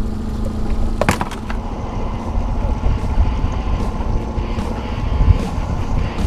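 Boat motor running steadily at trolling speed under a heavy low rumble of wind on the microphone, with a few sharp knocks, the loudest about a second in.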